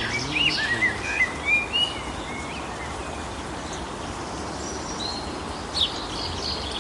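Small songbirds chirping and twittering over a steady outdoor hiss. A flurry of quick high calls comes in the first two seconds, the middle is quieter, and more chirps return near the end.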